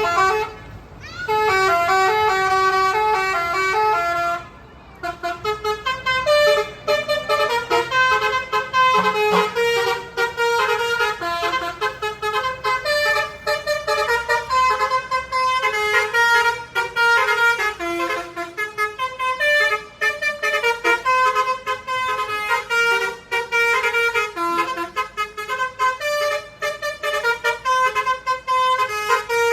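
Bus 'telolet' horn: a set of multi-tone horns playing quick, stepped melodic note runs over and over, with a short break about four and a half seconds in.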